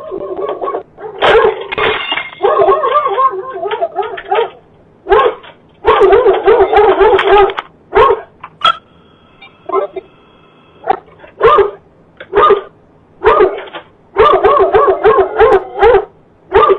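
A dog barking excitedly, in runs of rapid barks broken by short pauses.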